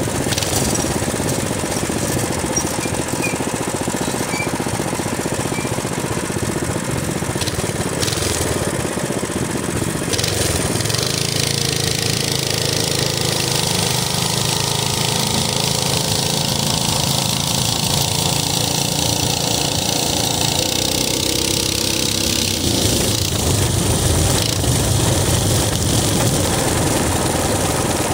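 Minibike engine running as it rides along, its pitch rising and falling with the throttle a couple of times.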